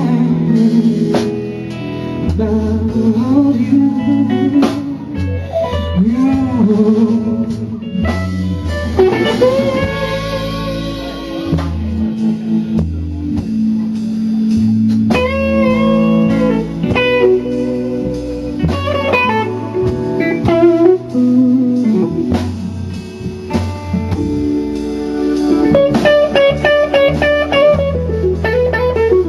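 Blues music in an instrumental stretch without singing, a guitar playing bending lead lines over the backing band.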